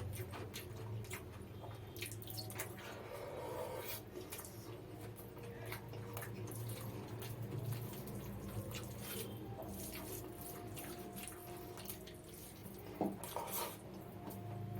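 Close-miked eating of mutton biryani with raita: wet chewing, squelching and lip smacks with scattered clicks, over a steady low hum.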